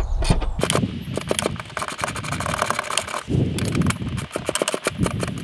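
Irregular clicks and knocks of a hand tool and bolt being worked on a bucket seat's rail mount, fitted without a rattle gun. About three seconds in, and again near the end, a low rustling noise.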